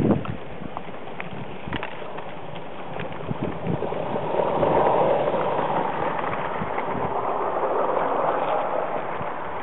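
A live-steam Accucraft model of a Welsh Highland Railway Garrett locomotive passing close by, its steam exhaust loudest about four to six seconds in, followed by a train of goods wagons rolling past with light clicking from the wheels on the track. A short thump sounds at the very start.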